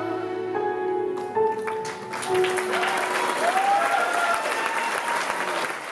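The last held notes of a tango recording die away, and an audience breaks into applause about two seconds in, with a couple of rising-and-falling whoops in the middle.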